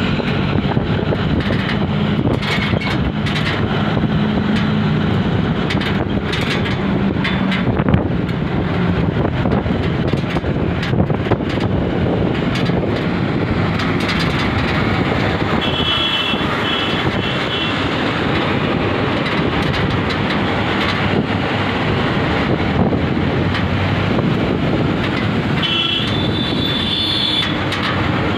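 Truck engine and road noise heard from a moving truck, a loud steady drone with a low engine hum through the first several seconds and a few sharp knocks and rattles. Short high-pitched beeps sound twice, near the middle and near the end.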